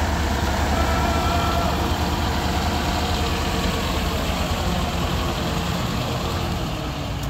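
A 1991 Scania 143M's 14-litre V8 diesel running at low revs as the tractor unit pulls slowly away, a steady low rumble that fades gradually as it moves off.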